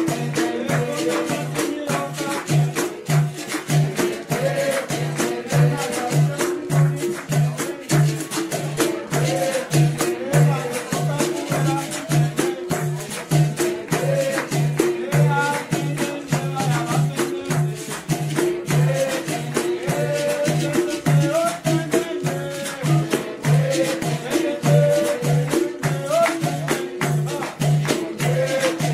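Capoeira roda music: a steady low drum beat, about one and a half strokes a second, under the rattle of caxixi and pandeiro jingles and berimbau, with group singing.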